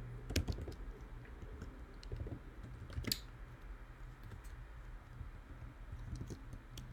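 Faint, scattered keystrokes on a computer keyboard, with one sharper click about three seconds in, over a low steady hum.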